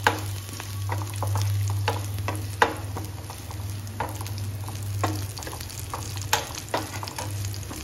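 Tempering (tadka): chopped garlic, ginger, green chillies and a dry red chilli sizzling in hot ghee in a small pan, stirred with a steel spoon that clinks and scrapes against the pan several times. A steady low hum runs underneath.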